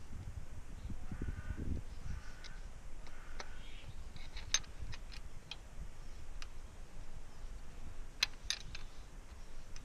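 Small metal clicks and taps of a screwdriver and box-end wrench working the rocker arm adjusting screw and locknut while setting valve lash on the Honda Civic's open cylinder head, with a cluster of sharper clicks near the end. Three short calls sound in the background in the first few seconds.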